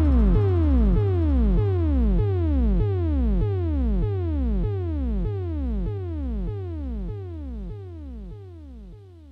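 Minimal electronic music: a synthesizer note that swoops down in pitch, repeated about three times a second, fading out gradually.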